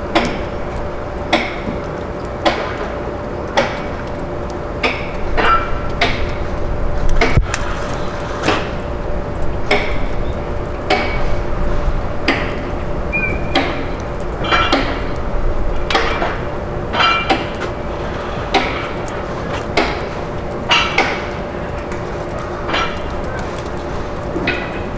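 Repeated sharp metallic strikes, about one every second with a brief ring after each, over a steady hum.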